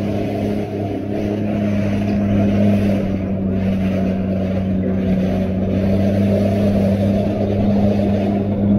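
Jet ski engine running at a steady speed, a constant humming drone.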